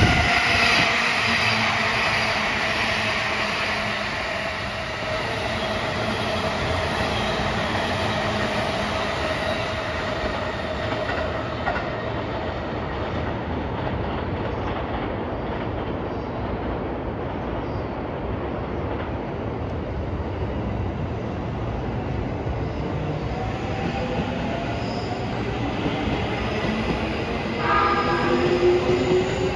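Electric trains running past on rail: a steady rumble of wheels on track throughout, with a motor whine that falls slowly in pitch over the first ten seconds, and rising motor whines near the end as another train picks up speed.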